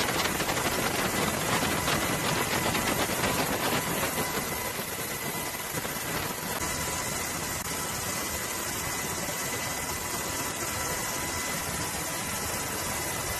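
Steady aircraft engine noise with a steady high whine. It flutters rapidly for the first few seconds, then settles into an even hiss about six seconds in.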